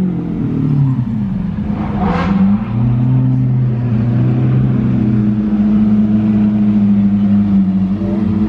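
Lamborghini Aventador V12 engines running at low speed as the cars roll slowly past, a low steady engine note that shifts in pitch early on, with a short sharper burst about two seconds in.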